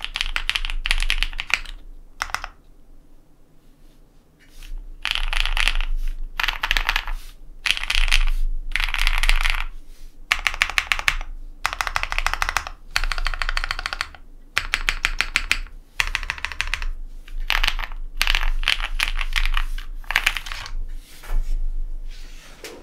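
Typing on a custom mechanical keyboard with an aluminium plate, lubed linear Cherry MX Black switches fitted with Kailh red stems, and GMK keycaps: bursts of fast key strokes with short gaps, and a pause of a couple of seconds near the start.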